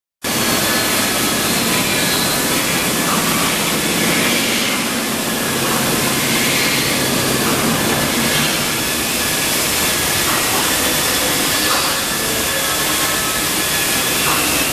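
Industrial drum sanding machine for kitchen-sink metal, its abrasive roll and dust extraction running with a steady, loud rushing noise and a faint, even whine above it.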